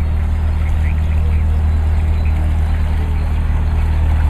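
Narrowboat engine running steadily at low speed as the boat passes and pulls away, a constant low hum with its propeller churning the canal water.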